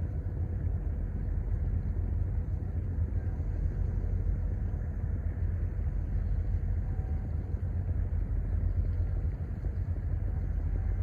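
River cargo ship's engine running with a steady low rumble.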